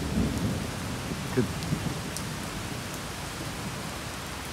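Steady rain falling on wet pavement and parked cars, an even hiss with scattered drop ticks.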